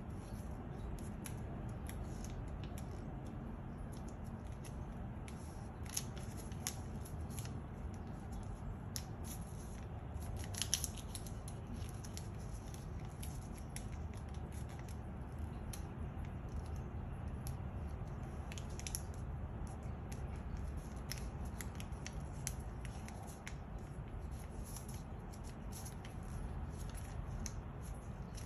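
Origami paper rustling and crinkling as it is folded and creased by hand, in scattered short crackles, the loudest about eleven seconds in, over a steady low hum.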